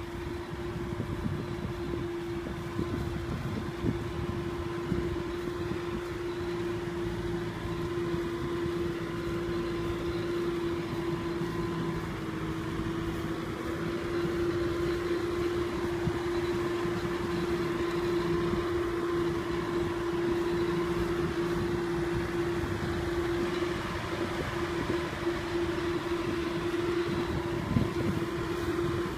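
Kubota M6040 tractor's diesel engine running steadily under load with a continuous droning tone, getting slightly louder about halfway through.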